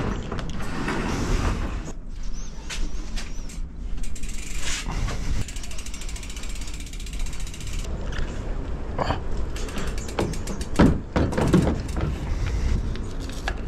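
Mountain bike's rear freehub ticking rapidly as the bike is wheeled along, after a roller garage door rattles open at the start. Near the end come two loud clunks as the bike is lifted into a pickup's tray.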